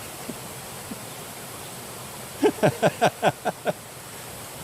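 Creek water rushing steadily. About halfway through, a person laughs briefly, about eight quick falling 'ha's.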